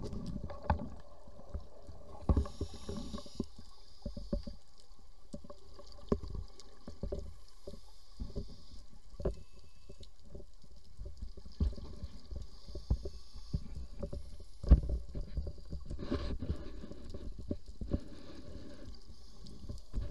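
Underwater sound picked up through a camera housing: a scuba diver's regulator breathing, with hissing stretches of air and bubbles a few seconds apart, over a low rumble and many scattered sharp clicks and knocks.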